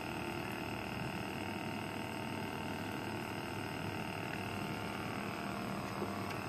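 Steady night-time ambience at a riverside fishing platform: a constant drone with several held tones and no distinct events.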